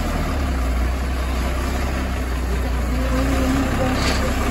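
Heavy diesel engine of earthmoving machinery running steadily, a constant low rumble.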